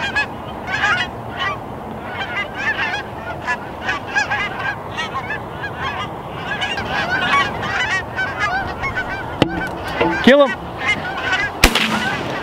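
A flock of Canada geese honking continuously as it circles in to land. Near the end comes a single shotgun blast.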